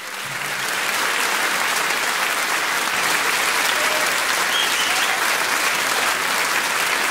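Applause: a crowd clapping, swelling up over the first second and then holding steady.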